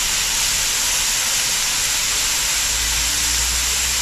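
Hot cooking oil sizzling steadily in a pot with ground spices frying in it.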